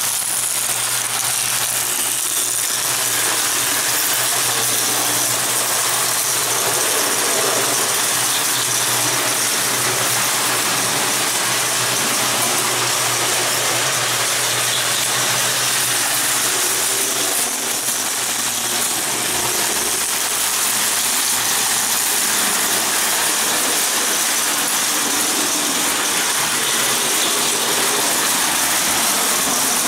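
Prewar Lionel O gauge tinplate trains running: gear-driven electric motors whirring and metal wheels clattering over three-rail track, with a steady low hum throughout.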